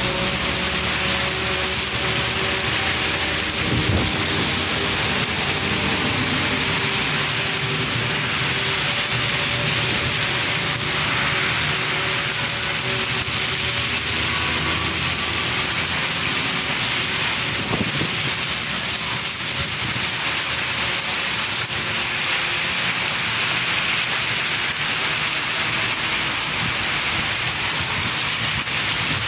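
Heavy rain pouring down on a flooded paved street in a steady, loud hiss, with runoff from an overhead awning splashing onto the pavement close by.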